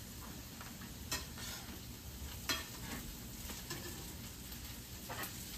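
Hash browns of diced potatoes, radishes and onion sizzling as they fry in bacon grease in a skillet. A spoon stirs them, scraping and clinking against the pan a few times.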